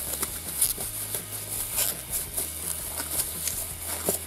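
Thin clear plastic bag crinkling and rustling in the hands as it is worked open around a jelly ball: a run of irregular, dry crackles.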